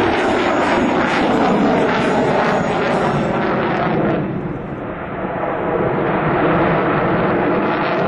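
F/A-18 Hornet fighter jet's engines at full power during an air-show pass, a loud jet roar with pitch sliding down early on. About halfway through the roar dips and loses its high hiss for a moment, then swells back up.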